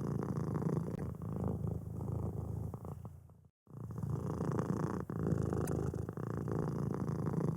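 Kitten purring steadily, with a brief complete dropout about halfway through.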